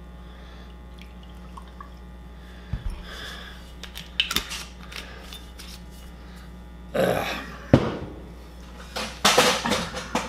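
Glass bottle and drinking glass being handled: a few light clinks of glass early on, a brief scraping rustle about seven seconds in with a sharp click right after it as the bottle is closed, then a cluster of knocks as things are set down near the end. A steady low electrical hum runs underneath.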